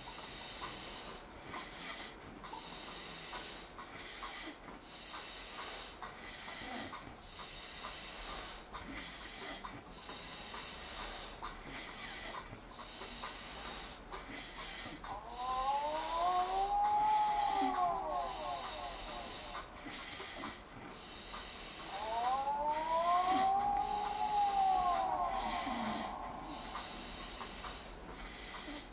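A sleeping man snoring and breathing heavily, each breath in and out a hissing rush of air with short pauses between. Twice a whistling tone rides on the breaths, rising and falling over a few seconds.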